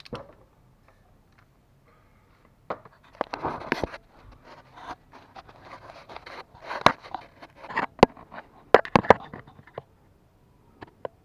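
Irregular clicks, knocks and scraping of a socket wrench on the crank pulley bolt as the engine is turned over clockwise by hand, with a few sharp knocks about three-quarters of the way through.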